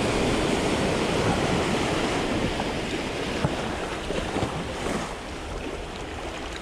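Small sea waves washing and swirling over shoreline rocks, a steady surf wash that is louder in the first couple of seconds and eases off toward the end.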